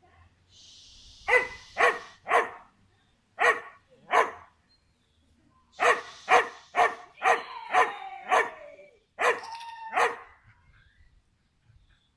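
A dog barking repeatedly, about a dozen sharp barks in short runs of two or three, a few trailing off with a falling pitch.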